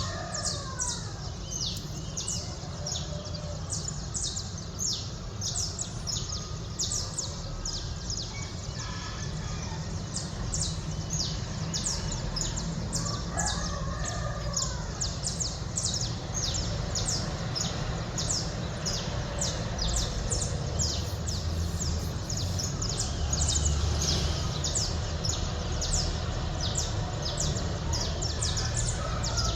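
Dawn chorus of many small birds chirping rapidly and continuously, with a rooster crowing twice, once at the start and once about halfway through, over a low steady rumble of city background noise.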